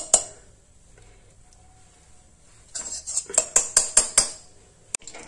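A spoon clinking against a kadhai: a couple of taps at the start, then a quick run of sharp taps about three seconds in, as ghee is knocked off the spoon into the pan.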